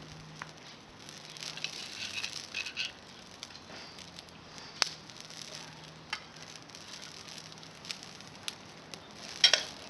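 Small fire of climbing-rose twigs crackling, with a light sizzling hiss and scattered sharp pops, and a quick cluster of louder pops near the end.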